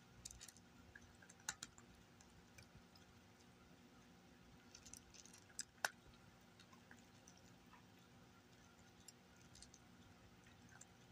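A cat crunching dry kibble from a bowl: faint, irregular crunches and clicks, with two sharper clicks about a second and a half in and just before six seconds.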